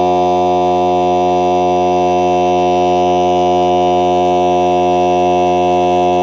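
NOCO Boost+Air AX65 jump starter's built-in air compressor running steadily, a loud, even hum, while inflating a car tire.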